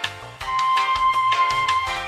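Background music with a steady beat and a held melody note.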